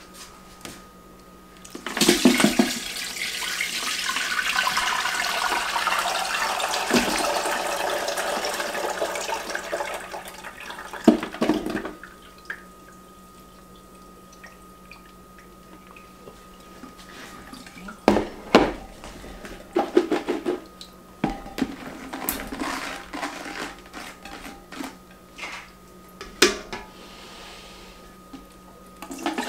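Pickle syrup poured from a large glass jar through a plastic colander into a stainless steel stockpot: a steady splashing pour for about ten seconds. After that come scattered clinks and knocks as the jar and colander are handled.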